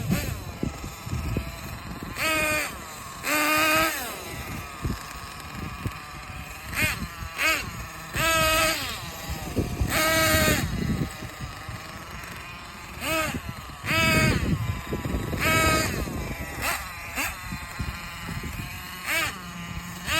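Freshly rebuilt Thunder Tiger S50 8.2 cc nitro RC engine on its first run, revved in short throttle bursts about eleven times. Each burst is a high whine that rises and falls in pitch, with the engine running at low speed in between.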